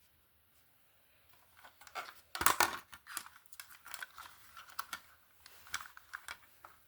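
Handling noise: irregular clicks, taps and rustling, like plastic being handled, loudest about two and a half seconds in. No alarm tone sounds.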